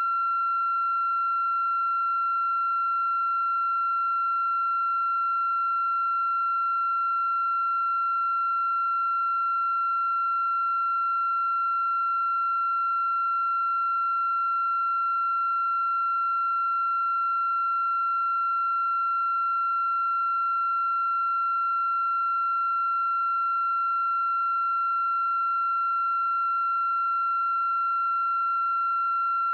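A steady, high-pitched electronic tone held at one unchanging pitch, with faint overtones above it.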